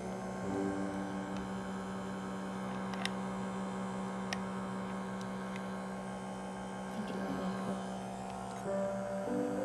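Small electric motor of a handheld device humming at a steady pitch, with a few faint clicks.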